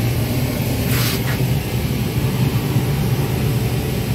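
Steady low drone of a running engine, with a short hiss about a second in.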